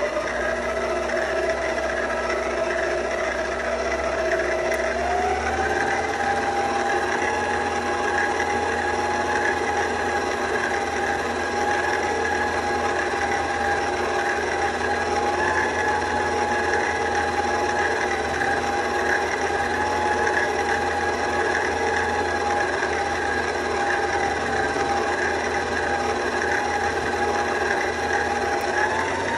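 Electric stand mixer running with its dough hook turning through flour and oil for bread dough: a steady motor whine that steps up in pitch about five seconds in.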